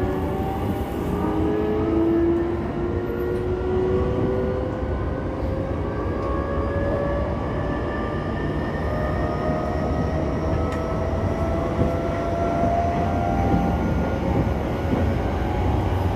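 E233-2000 series electric train accelerating: the VVVF inverter and traction motors whine in several tones that rise slowly in pitch, over a steady rumble of wheels on rails.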